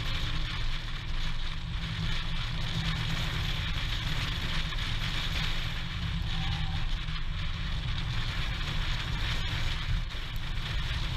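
Steady low rumble and noise of a vehicle on the move.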